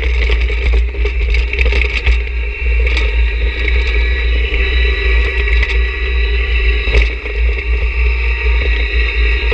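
John Deere 1026R sub-compact tractor's three-cylinder diesel engine running steadily under load as its front snow pusher scrapes along and shoves a pile of snow, with a couple of sharp knocks about three and seven seconds in.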